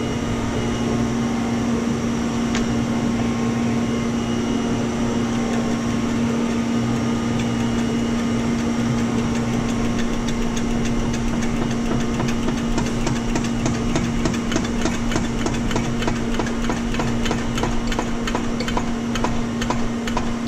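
Dake hand-pumped hydraulic shop press pressing a bearing into a Mazda rotary engine rotor. From about halfway, rapid even clicking comes from the pump as the lever is worked, getting denser toward the end, over a steady hum.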